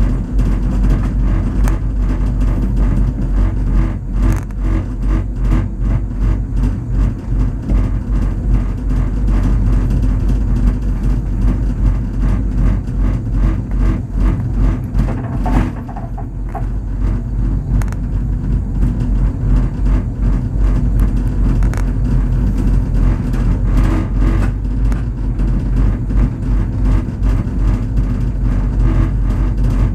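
Cabin of an old aerial cableway travelling uphill at speed: a steady low rumble with buffeting and rattling. The noise briefly changes about halfway through, with a dip and a short pitched sound, as the cabin runs past a support tower.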